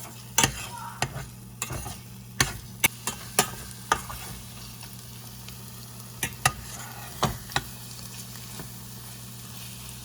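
Eggs and sausage frying in hot oil in a pan with a faint sizzle. A utensil stirs, scrapes and knocks against the pan in sharp clicks, many in the first few seconds and again a little past the middle, over a low steady hum.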